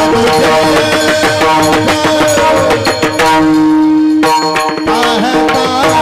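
Male voices singing a Varkari kirtan tune into microphones, with a mridang barrel drum and small hand cymbals (taal) keeping a fast beat. About halfway through, the strikes thin out briefly under one long held note.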